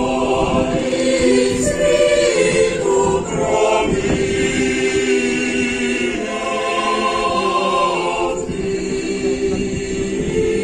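Mixed choir of men's and women's voices singing, holding long chords that change every second or two.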